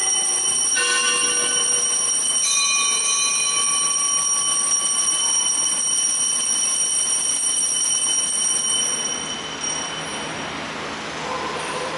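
Altar bells rung at the elevation of the chalice: struck twice in the first few seconds, each stroke a cluster of bright, high, ringing tones, with the ringing fading out by about nine seconds in.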